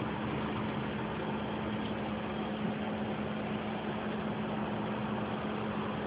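A vehicle engine idling: a steady drone with one constant low hum running under it.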